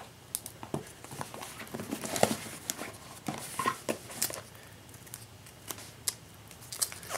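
Tablet box and packaging being handled: scattered clicks, light knocks and brief rustling, the loudest a little after two seconds in.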